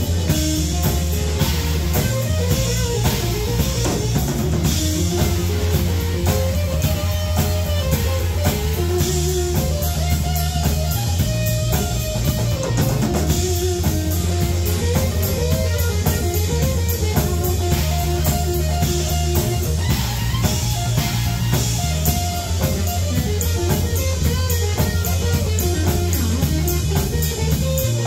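Live rock trio playing an instrumental passage. An electric guitar plays a lead line with bent notes over bass guitar and a drum kit with a steady cymbal beat.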